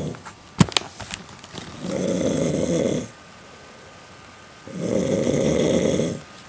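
Snoring: two long snores, each about a second long and about three seconds apart. A few sharp clicks come just before the first one.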